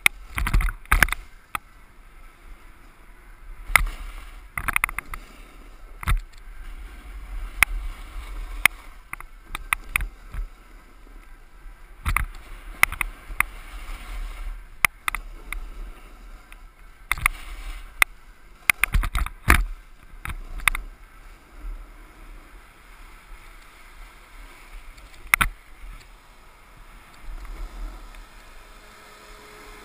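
Snowboard sliding and scraping over groomed corduroy snow, heard through a helmet-mounted GoPro, with a steady low rumble and irregular sharp knocks and clicks as the board chatters over the snow.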